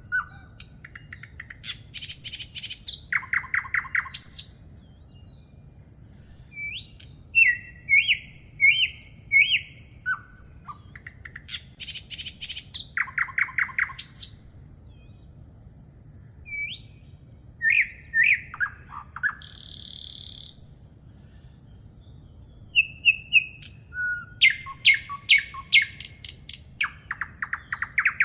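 Songbirds singing: short phrases of chirps and fast trills come every few seconds, with one harsher rasping call about twenty seconds in. A faint steady low rumble lies underneath.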